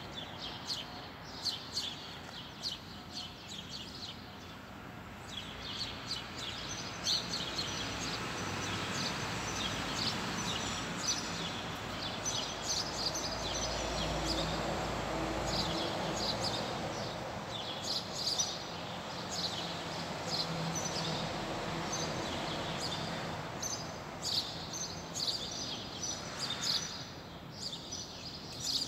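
Small birds chirping in short, repeated calls over steady outdoor background noise. A low rumble swells in the middle and fades again.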